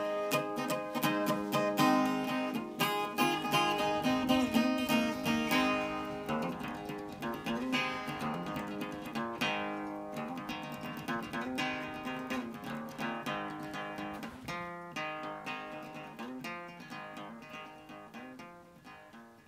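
Background music: a picked acoustic guitar melody, note after note, fading out gradually and dying away near the end.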